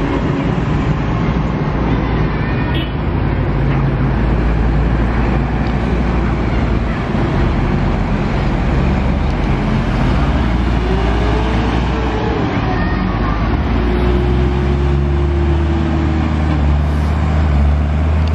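Diesel engines of a procession of large farm tractors passing close by on a road, a loud steady low drone, with one engine note rising and then falling back about two-thirds of the way through.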